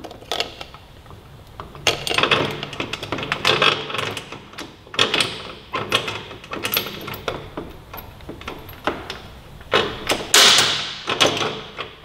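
Irregular metallic clicks, rattles and clanks from a Suzuki GSX-R1000R's rear wheel and drive chain being worked loose by hand: the wheel is pushed forward in the swingarm so the chain slips off the sprocket. A louder clatter comes about ten seconds in.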